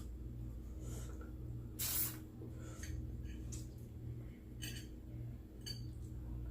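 Close-up eating mouth sounds: a series of short wet smacks and clicks, with a brief hiss-like suck about two seconds in, over a steady low hum.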